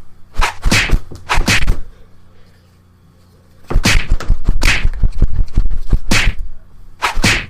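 Fight-scene sound effect of quick punch-and-swoosh hits: a few rapid whacks, a pause of about a second and a half, then a dense flurry of strikes, and one more pair near the end.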